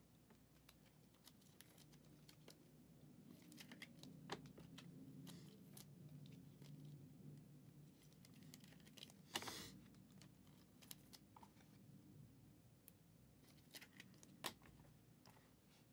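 Faint clicks and short plastic-and-card rustles of trading cards being handled, with one louder rustle about nine seconds in, over a low steady room hum.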